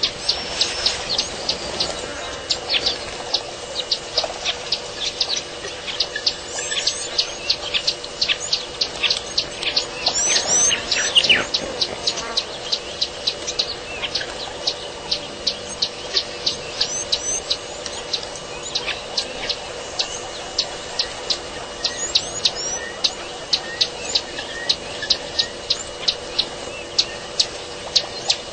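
Wild birds calling: a short high chirp repeated evenly about two times a second, with other birds' warbling calls over it several times. A faint steady hum runs underneath.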